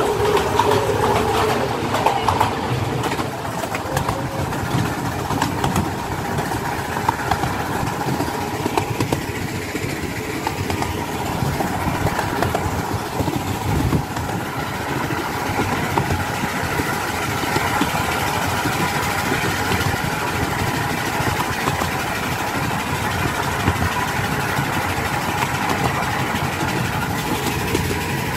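Miniature steam railway train running, heard from a passenger carriage: steady rolling noise of the wheels on the rails with frequent short clicks and knocks, starting inside a tunnel.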